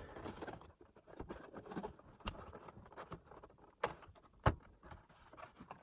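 Scattered light clicks and knocks of hands and tools working on the plastic cabinet of a Panasonic RX-5030L radio cassette player during disassembly, with a few sharper taps about two, four and four and a half seconds in.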